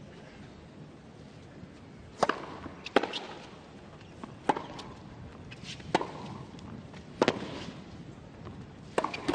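Tennis ball hit back and forth with racquets in a baseline rally: a string of sharp pops, about a second to a second and a half apart.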